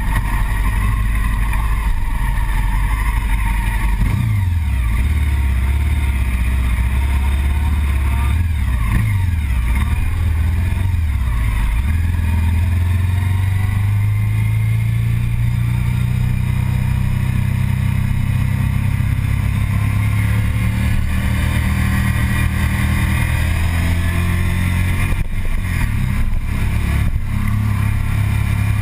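Sport motorcycle engine heard from the rider's seat while riding. The engine note dips and climbs several times in the first dozen seconds, then holds a steady pitch.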